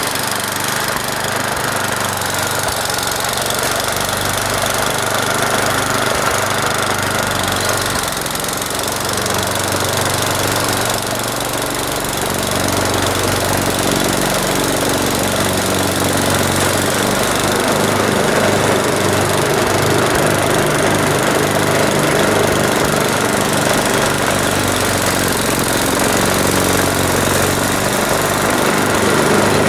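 Snowblower's small gasoline engine running steadily and smoothly while clearing snow, a little louder in the second half.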